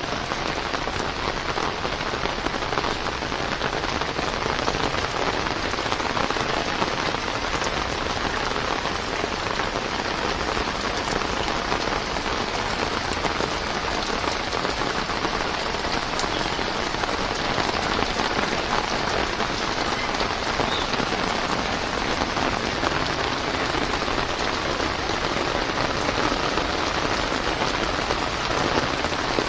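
Heavy rain falling steadily, a dense even hiss of drops with no breaks.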